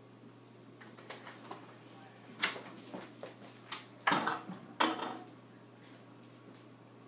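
A scatter of short clinks and knocks, as of hard household objects being handled or bumped, coming thicker and louder about four to five seconds in.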